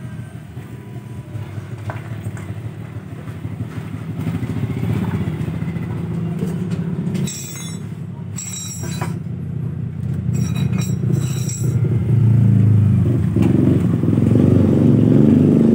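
Motorcycle engine running, growing steadily louder and loudest over the last few seconds. A few short high chirps come in the middle.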